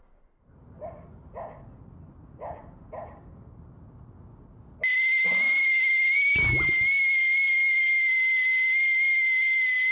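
Stovetop kettle whistling at the boil: a loud, steady high whistle that starts suddenly about five seconds in. Before it, four short animal calls sound over a low rumble, and a short low thump comes under the whistle.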